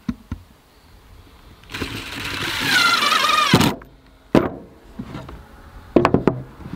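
Cordless impact driver driving a screw through the PVC trough into a 2x4 end block, a whirr of about two seconds whose pitch drops as the screw seats before it cuts off. A few sharp knocks follow as the tool and trough are handled.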